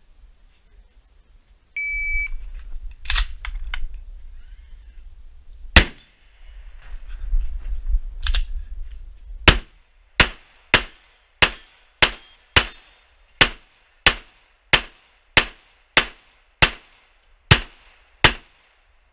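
A shot timer beeps once, then a pistol fires a string of about eighteen shots. The first three are spaced a few seconds apart under a low rumble, then they come in a steady run about every half second.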